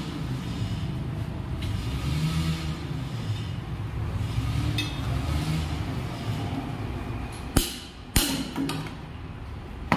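Two sharp metal knocks about half a second apart, near the end, and a third right at the end: a hammer striking a rod held against the tractor engine to free a part. Under them runs a steady low mechanical rumble.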